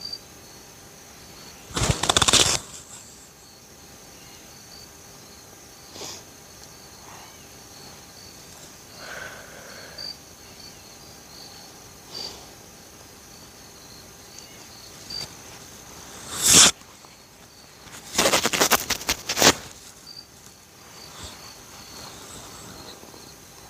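Insects chirping steadily with a faint high hum, broken by loud rustling noises close to the microphone about two seconds in and again, crackling, between about sixteen and twenty seconds.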